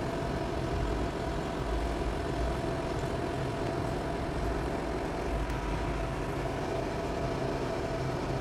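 A machine running steadily in the background: an even hum with a low rumble and a few steady tones.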